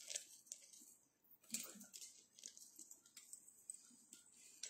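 Near silence: faint room tone with a few soft, scattered clicks and rustles of handling.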